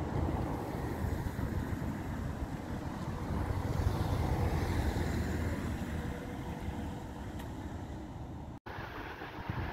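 Wind rumbling on the microphone over street traffic noise, with a tram passing in the distance. A brief dropout near the end.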